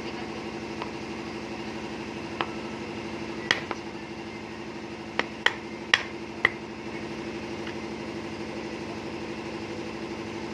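A steady motor hum with a fine, even pulse, like an idling engine, runs throughout, with a handful of sharp clicks and taps between about two and seven seconds in.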